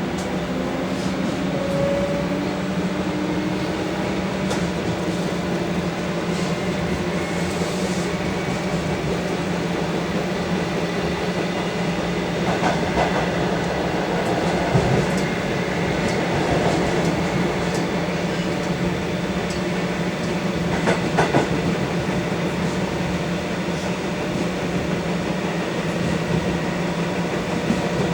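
Comeng electric multiple unit train running, its motor whine rising in pitch over the first few seconds over a steady hum. A few sharp clicks and knocks from the wheels come about halfway through and again later.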